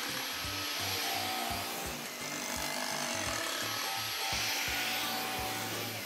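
Stick vacuum cleaner running over carpet: a steady rushing noise with a thin high whine, which cuts off abruptly at the very end. Background music with a steady beat plays underneath.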